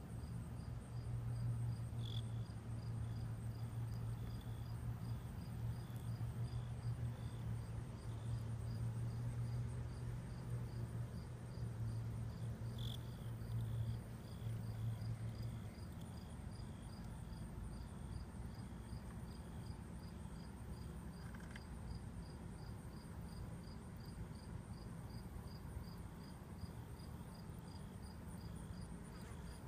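Insect chorus: crickets chirping in steady, rapid, evenly spaced pulses at two or three different high pitches. A steady low hum runs underneath and fades out about halfway through.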